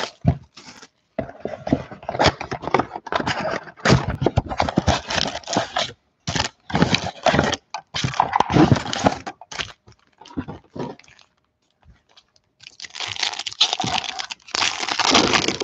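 Plastic shrink-wrap and a cardboard box of Donruss Optic football cards crackling and rustling as the box is unwrapped and opened by hand. Near the end, the thicker crinkle of a foil card pack being handled.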